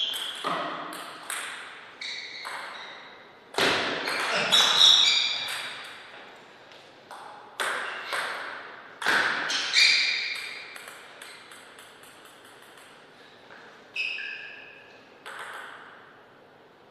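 Table tennis ball being hit back and forth with paddles and bouncing on the table, a run of sharp clicks, each with a short ringing tail. The hits come in quick rallies with lulls between points.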